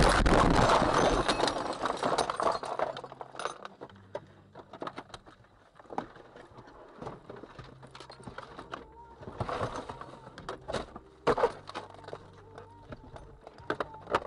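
A car rolling over ends with a loud crashing, scraping noise that dies away over about three seconds as the car comes to rest overturned. Then comes a run of scattered small clicks, ticks and light knocks as glass and debris settle in the wrecked car.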